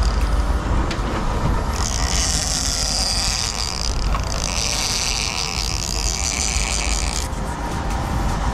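Big-game trolling reel's clicker buzzing as a fish pulls line off the spool, for about five seconds with a short break in the middle: a fish has taken the bait and is running. A steady low rumble of the boat's engine runs underneath.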